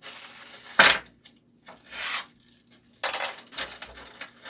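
Small loose metal parts, the scroll saw's Allen wrenches and pinless blade adapters, being handled and clinking together. There is a sharp metallic clink about a second in and another just after three seconds, with lighter knocks and rustling in between.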